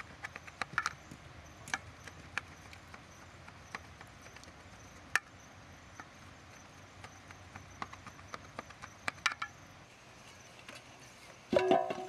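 A metal spoon cutting through a baked walnut kuku, clicking and scraping against the metal tray in scattered, irregular clicks. Near the end comes a louder, ringing clatter of dishes.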